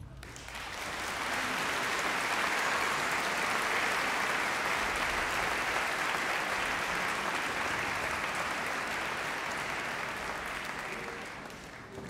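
Audience applauding at the end of an orchestral piece: the clapping builds over the first second or two, holds steady, then dies away near the end.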